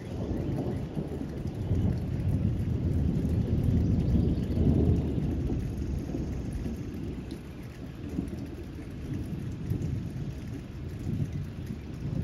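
Rain falling with low rolling thunder that swells a few seconds in and again near the end.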